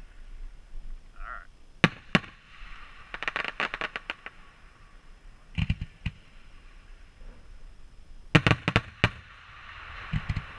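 Fireworks going off in clusters of sharp bangs as shots launch and burst: a pair about two seconds in, a quick rattle of pops, more bangs near six seconds, and a rapid string of bangs about eight and a half seconds in. A hiss runs between the bangs.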